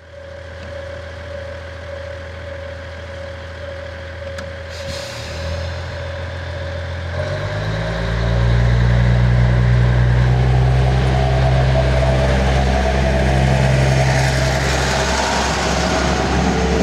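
KiHa 110 series diesel railcar idling at the platform, with a brief hiss about four and a half seconds in. At about seven seconds its diesel engine throttles up and grows louder as the train pulls away and the cars roll past.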